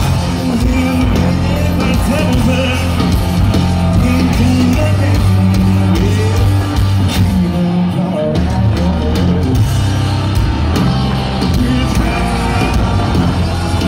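Live hard rock band playing: distorted electric guitars, bass and drums, with a male lead singer.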